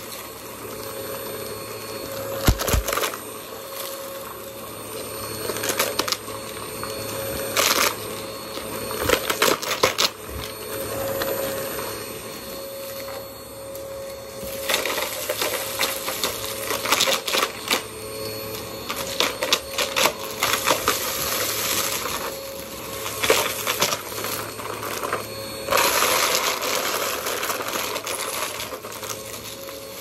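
Vacuum cleaner running with a steady motor tone, and debris clicking and rattling as it is sucked up, the suction noise swelling as it passes over the floor.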